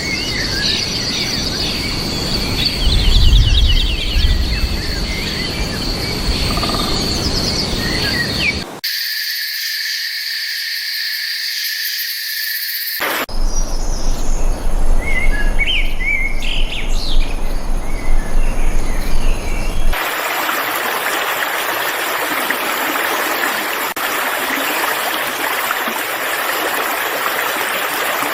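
Wild birds calling and singing across several different recordings joined by abrupt cuts, with a steady high buzz under the first part and louder chirping calls in the middle. The last part is mostly a dense, even hiss of background noise.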